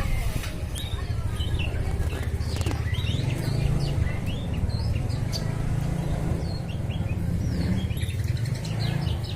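Songbirds calling with many short, quick chirps and trills, over a steady low hum.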